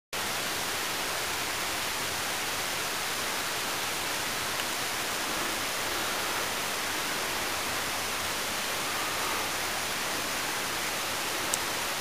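Steady, unbroken rush of falling water from the Pistyll Rhaeadr waterfall.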